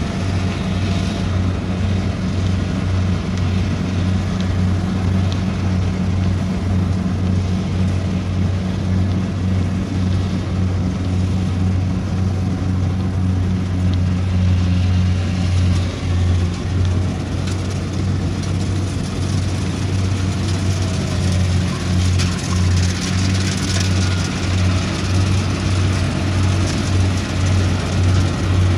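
Kubota combine harvester's diesel engine running steadily under load as the machine cuts a ripe grain crop, a constant low drone that grows a little louder toward the end.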